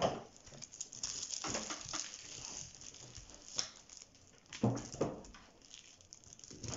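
Paper towel rustling and crinkling while a glitter-coated plastic ornament is handled and wiped. There are small clicks throughout and two sharper knocks about two-thirds of the way in.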